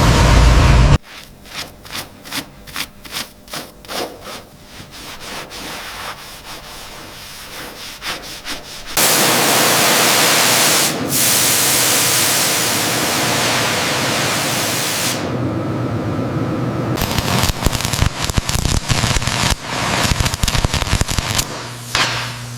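Hand sanding or rubbing on bodywork, even strokes about twice a second, then a loud steady hiss about nine seconds in, followed by irregular scraping and clicks.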